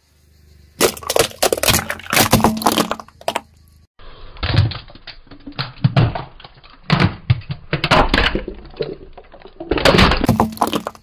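A model skull cracking and crunching under a car tyre: dense runs of sharp cracks and breaking, in two long bursts with a short pause near the fourth second.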